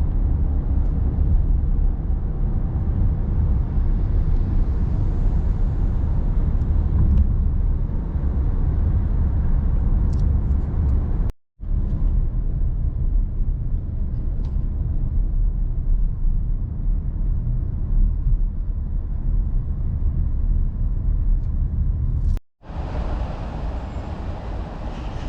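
Steady low rumble of a car driving, engine and road noise. It is broken by two abrupt cuts about 11 and 22 seconds in, and the last stretch sounds brighter.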